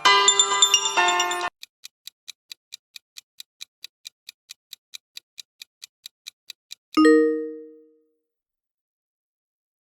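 A phone app notification tone with several bright notes, cut off about a second and a half in, then a countdown timer ticking about four times a second for five seconds, ending in a single loud bell ding that rings out.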